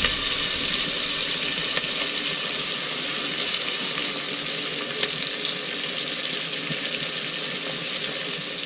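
Onion, garlic and bay leaf frying in hot oil in a pan, a steady sizzle while the onion browns.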